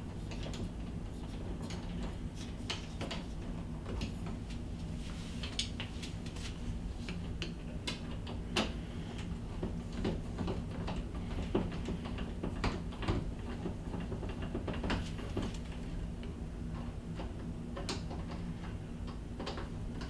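A hand screwdriver tightens the mounting screws of an interior door knob, making irregular small metallic clicks and ticks. A steady low hum runs underneath.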